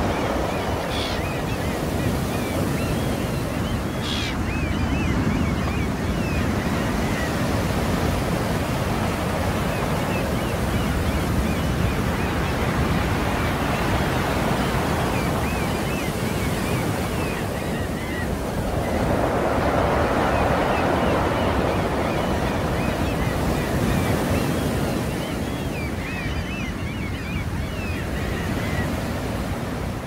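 Sea waves washing onto a shore: a steady rush of surf that swells and ebbs, building to a stronger surge about two-thirds of the way through.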